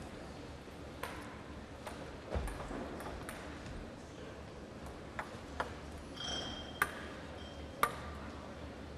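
Table tennis ball clicking in scattered single bounces, about nine sharp ticks at irregular gaps, over the hum of a sports hall. A dull thump comes about two and a half seconds in and a brief squeak a little after six seconds.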